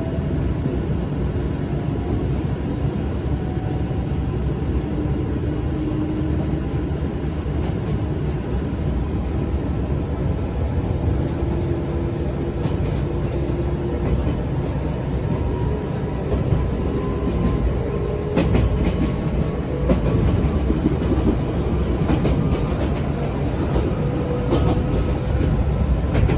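Izukyu 2100 series resistance-controlled electric train running, heard from inside the car: a steady rumble of wheels on rail, with the traction motors' hum slowly rising in pitch as the train gathers speed. Sharp rail-joint clicks come in the second half.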